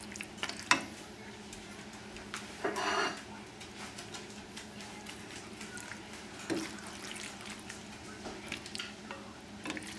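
A plastic serving spoon scraping and knocking against a stainless steel pan while scooping sauced pasta and chicken, with soft squishing of the wet food. There are scattered light clicks and a longer scrape about three seconds in.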